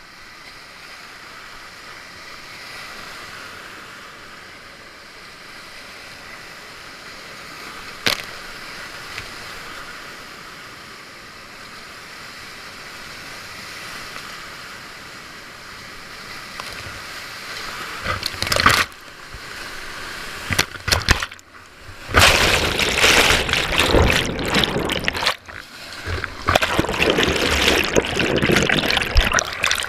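Whitewater rapids rushing steadily, then, a little past halfway, loud, choppy splashing as waves break over the kayak and the helmet camera, cutting out briefly a few times.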